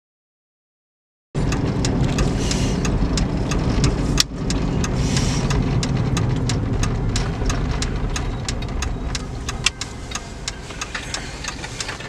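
Road and engine noise inside a moving car: a steady low rumble with many small ticks and clicks through it, starting suddenly about a second in.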